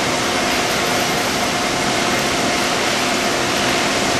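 VMC220L CNC vertical machining center milling a metal part under flood coolant: a steady rush of coolant spray and cutting noise with a faint steady hum and whine from the spindle underneath.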